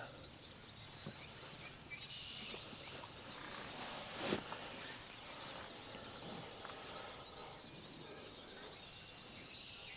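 Steady rain hiss, with a brief distant wild turkey gobble about two seconds in and a single sharp knock a little past four seconds.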